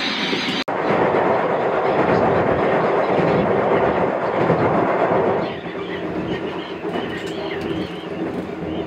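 Electric local train running on snowy track, heard from inside the train: a loud rumbling rattle as it crosses a steel girder bridge, easing about halfway through to quieter running wheel noise with faint high squeaks.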